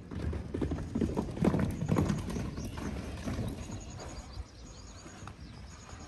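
A horse's hooves clip-clopping in quick, uneven beats, loudest about one to two seconds in and then fading as the horse moves off.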